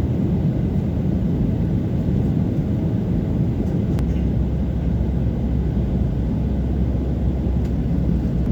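Steady low rumble of an airliner cabin on the ground, heard from inside the cabin, with a faint click about four seconds in after which the deepest part of the rumble grows slightly stronger.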